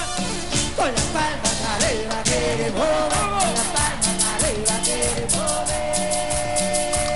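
Cumbia villera band playing live, with a quick steady percussion beat under a bending lead melody.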